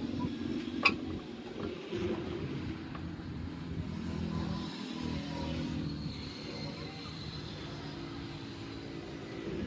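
A steady mechanical drone, with a single sharp click about a second in.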